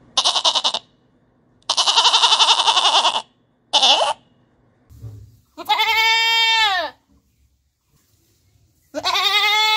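Goats bleating, five calls in all: three harsh, quavering bleats in the first four seconds, the middle one longest, then two clearer, pitched bleats that fall away at their ends.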